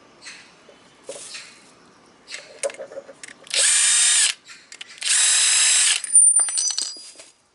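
Handheld electric power tool, drill-like, running in two loud bursts of under a second each, with small metal clicks before them. A thin high whine lingers and fades after the second burst.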